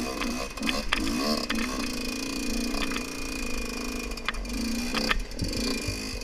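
Dirt bike engine pulling under load as the bike climbs, its revs rising and falling about a second in and then held fairly steady, with several sharp knocks from the bike jolting over ruts.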